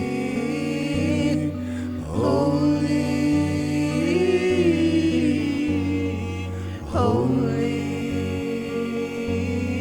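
Slow worship music: sustained held chords under a voice singing long notes, with upward swoops about two seconds in and again about seven seconds in.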